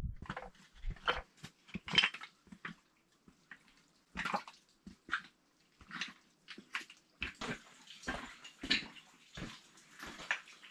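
Irregular crunching footsteps and scrapes on loose slate rubble, with some wet splashing underfoot.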